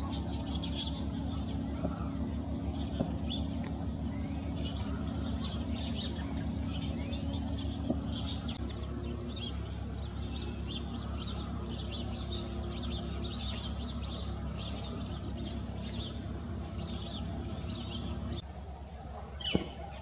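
Small songbirds chirping, many short high calls one after another, over a steady low hum that drops away near the end.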